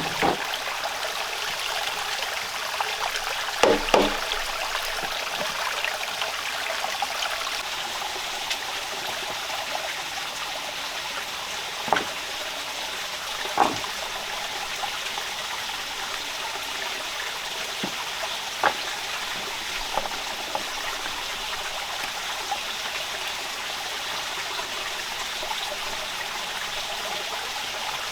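Steady rain falling, an even hiss, with a handful of louder single taps scattered through.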